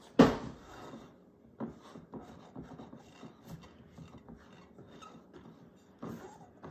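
Hands kneading and pressing soft cookie dough in a glass mixing bowl: a quiet, irregular rubbing and squishing. A single loud thump comes just at the start.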